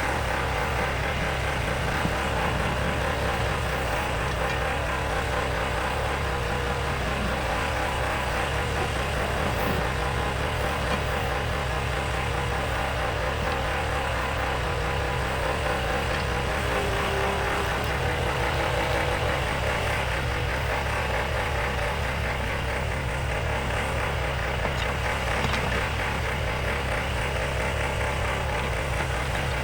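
Bobcat skid steer's diesel engine running steadily at an even speed, with no revving or pauses.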